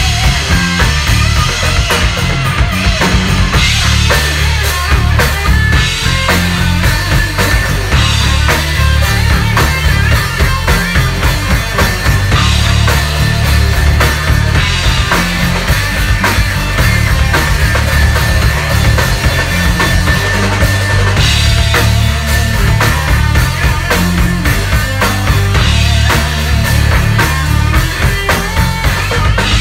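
Heavy rock band playing full out, with electric guitar, electric bass and a drum kit in a steady, loud groove.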